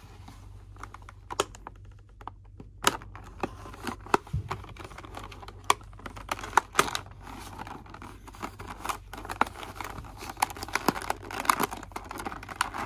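Action-figure packaging being cut open: irregular sharp clicks and crackles as it is cut and pulled apart.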